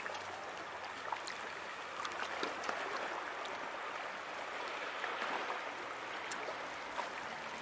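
Water washing and lapping against shoreline rocks, a steady wash with a few faint clicks.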